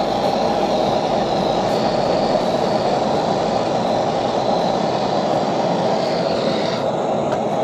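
Gas torch flame burning with a steady, loud roaring hiss while heating an iron mould. The high hiss in the flame drops away shortly before the end.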